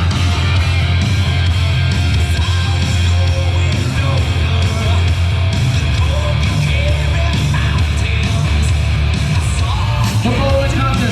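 Loud, steady rock music with a heavy low end.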